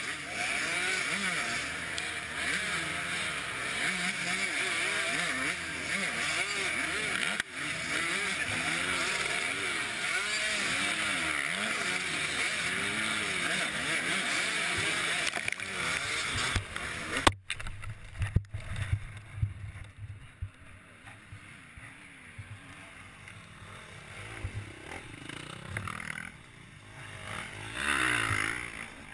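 Several dirt bike engines revving up and down over and over while bogged in a rut. After a sudden break about 17 seconds in, a quieter, uneven low engine sound follows, with a brief louder swell near the end.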